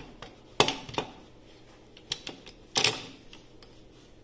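Several sharp metallic clicks and clunks from a Fiat Ducato gear-shift selector mechanism as it is handled and set down on a steel workbench. The loudest come about half a second in and a cluster near three seconds in.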